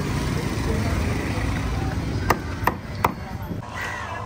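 A long knife chopping through a large fish on a wooden chopping block: three sharp chops in quick succession a little over two seconds in, over a steady low rumble.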